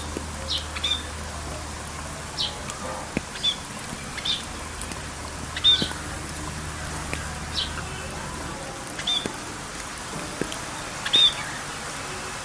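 A songbird chirping repeatedly, short bright chirps about once a second, over a steady background hiss.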